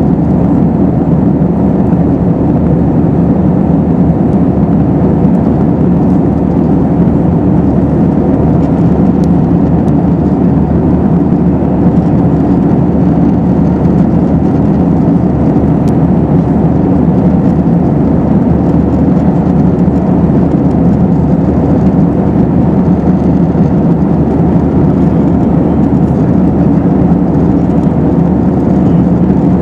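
Steady low cabin noise inside an Airbus A321-212: its CFM56 engines running and the rush of air along the fuselage, heard from a window seat, unchanging throughout.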